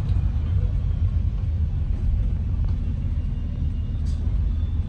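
Steady low rumble of an Alexander Dennis Enviro400 MMC double-decker bus heard from on board while it drives, with a faint tick about four seconds in.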